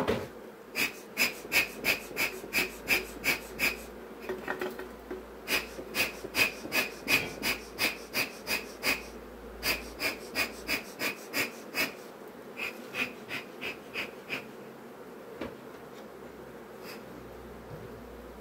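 Bee smoker bellows being pumped by hand, puffing smoke in quick runs of short wheezing puffs, about three a second, that stop about 14 seconds in. A sharp knock comes at the very start.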